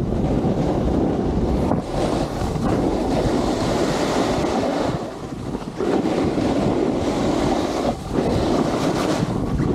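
Wind buffeting the microphone of an Insta360 camera carried down a ski run at speed, with the rush of sliding on snow underneath. The noise eases briefly about five seconds in and again around eight seconds.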